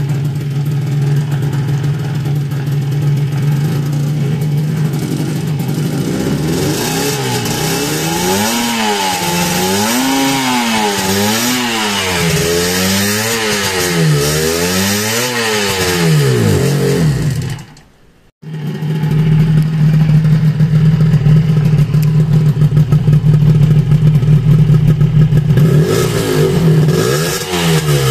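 Suzuki RG250Γ's two-stroke parallel-twin engine idling, then blipped about six times in a row, the revs rising and falling each time. After a brief break it idles steadily again.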